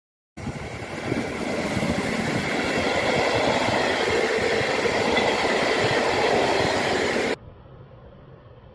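Freight train of open wagons, hauled by an electric locomotive, passing at speed: a loud, steady rolling rumble of wheels on rails with a light clatter. It starts suddenly just after the start, cuts off abruptly about a second before the end, and gives way to a much quieter, duller rolling sound.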